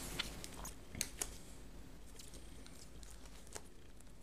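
Faint handling sounds of a wet ZAGG Invisible Shield clear plastic film being laid and shifted on an iPad's aluminium back: a few light crinkles and sharp ticks, the clearest about a second in.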